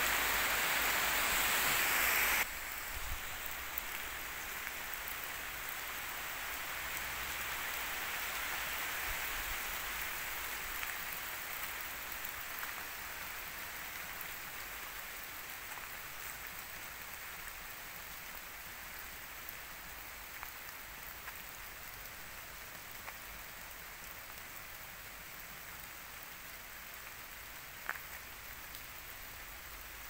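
Light rain pattering on woodland leaves, a steady hiss that slowly fades. A louder rushing sound in the first two seconds cuts off suddenly, and there is one sharp click near the end.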